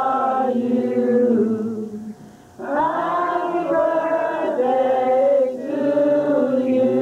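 A group of people singing together without accompaniment, in slow, long-held notes, with a short pause for breath about two seconds in.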